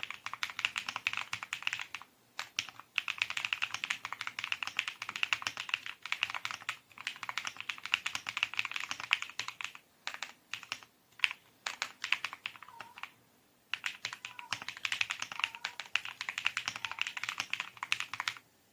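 Mechanical keyboard with NightSakura switches being typed on quickly: a dense clatter of keystrokes in runs, broken by short pauses about two seconds in, around ten and thirteen seconds, and stopping just before the end.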